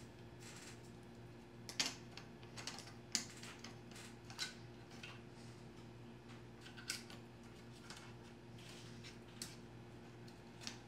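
Faint, irregular light clicks and taps of small parts and tools being handled on a repair bench while an iPhone logic board is set into a heating platform, over a steady low electrical hum.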